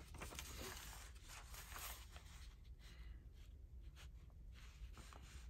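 Near silence: faint rustling of paper being handled, over a low steady hum.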